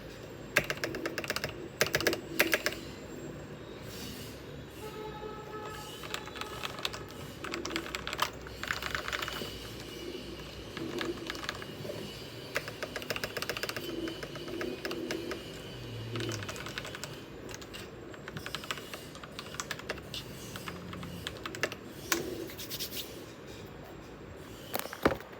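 Typing on a custom CIY Tester68 mechanical keyboard with lubed Huano Red linear switches, lubed stabilizers and case foam: a steady, irregular stream of keystrokes, with a few louder strokes about two seconds in and at the very end.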